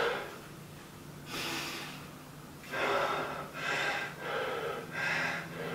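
A man breathing hard after high-intensity exercise: heavy gasping breaths, sparse at first, then quick and regular, about one and a half a second, from about halfway in.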